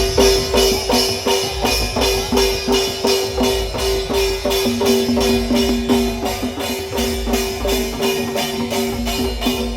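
Loud, fast music driven by dense percussion, about five hits a second, over two steady held notes.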